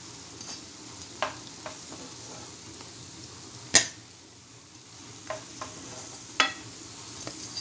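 Aloo tikki frying in hot oil with a steady low sizzle, and a perforated steel spatula clicking sharply about six times as the patties are lifted out, loudest just before four seconds in.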